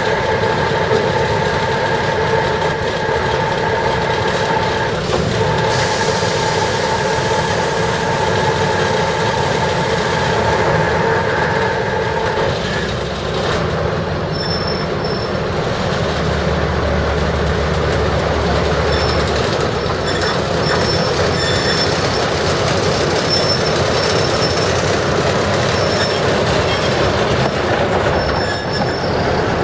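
Railway shunting move: a diesel shunting locomotive running and the steam locomotive E2 1180 being pushed slowly along yard track. A steady pitched engine hum breaks off briefly about five seconds in and stops about twelve seconds in. Then comes a rolling rumble of wheels on rail, with short high wheel squeals on and off.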